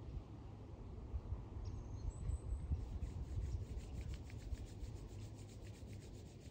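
Palms rubbed briskly together in a quick, even back-and-forth, about seven strokes a second, starting about three seconds in. Under it, a low wind rumble on the microphone.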